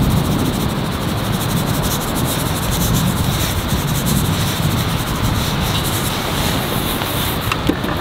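A seasoning shaker is shaken over a thick raw steak, and hands rub the seasoning into the meat with a scratchy, grainy sound. Under it runs a steady rushing noise with fine crackles.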